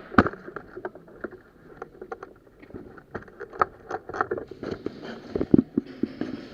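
Footsteps crunching through dry leaves and brush: irregular light crunches and clicks, a little louder near the end.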